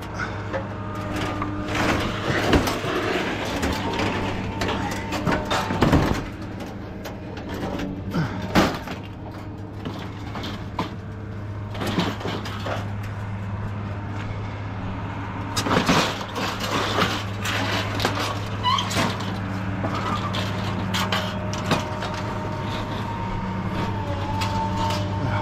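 Scrap metal being unloaded by hand and dropped onto a pile: irregular clanks, knocks and rattles of sheet metal and wire shelving, over the steady hum of an idling engine.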